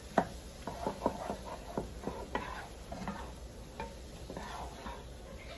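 Wooden spoon stirring softened vegetables and flour in a pot, with irregular knocks and scrapes of the spoon against the pot as the flour is mixed in.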